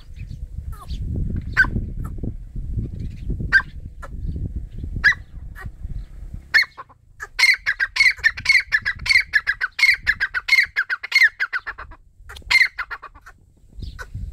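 Teetar (francolin) calling: sharp single notes about every second and a half over a low rumble, then, about halfway through, a fast run of repeated notes lasting some five seconds, followed by one more note.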